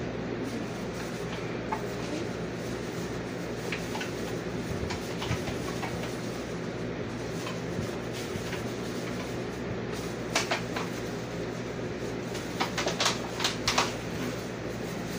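Steady low hum of room noise, with a few sharp clicks about ten seconds in and a cluster more near the end as pie crust is handled in foil and disposable tins.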